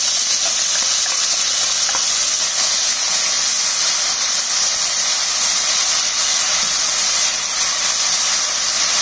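Ground onion paste (onion with ginger, garlic and green chilli) sizzling in hot oil in a steel kadhai while it is stirred with a steel spatula. The hiss is loud and steady, and it is the onion masala frying at the start of the bhunao.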